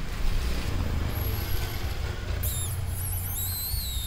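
Low wind rumble on the microphone, with a few high, bending squeaks from about two and a half seconds in.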